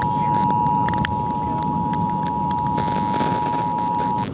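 Emergency Alert System attention signal: the two-tone 853 and 960 Hz alert tone held steady over radio hiss and crackle, cutting off near the end. It marks the start of an EAS broadcast, here a monthly test.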